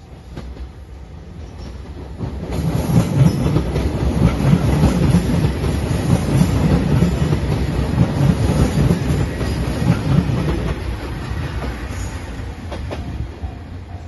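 JR 2700 series diesel limited express train passing close by on the track. Its sound builds from about two seconds in, stays loud through the middle, and fades after about eleven seconds.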